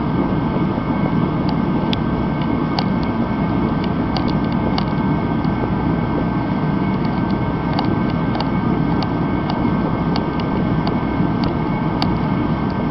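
Mr. Heater Contractor Series 175,000 BTU kerosene torpedo heater running steadily at full burn: the fan and burner make a constant, even noise, and a few faint clicks come through here and there. The heater is in good working order, and it sounds really good.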